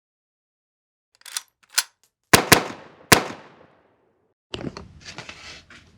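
Two light clicks, then three sharp gunshots, two in quick succession and a third about half a second later, each ringing out as it decays. A softer, noisy stretch follows near the end.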